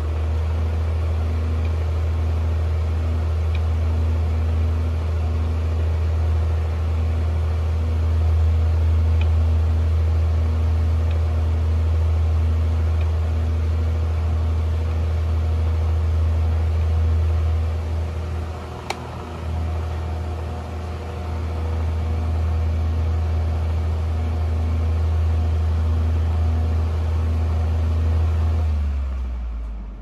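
Early-1980s Artic Breeze 12-inch table fan running steadily, a deep rumble with a steady hum and a rush of air. Its level dips briefly a little past the middle, with a single small click.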